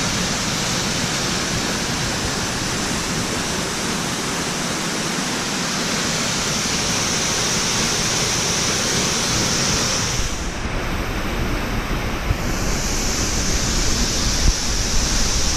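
Waterfall rushing steadily as it pours into its plunge pool. The hiss dips for a couple of seconds about two-thirds through, and a few low bumps hit the microphone near the end.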